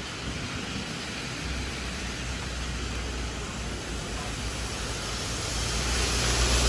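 Steady hiss of rain, with a low engine rumble from a vehicle on the wet road coming in and growing louder toward the end.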